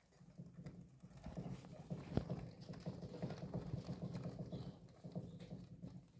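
Gerbil running in a wooden exercise wheel: quick pattering footfalls over a low rumble of the spinning wheel. It builds up over the first second, with one sharper knock about two seconds in, and fades near the end as the wheel slows.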